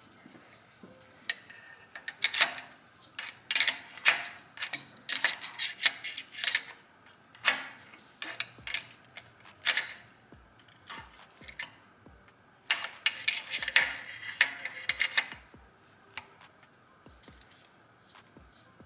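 Hand wrench turning a steel bolt on an oil catch can mounting bracket, making quick metallic ratcheting clicks. The clicks come in three bursts: a long run over the first few seconds, a short one near the middle, and another a few seconds later. Only a few faint clicks follow.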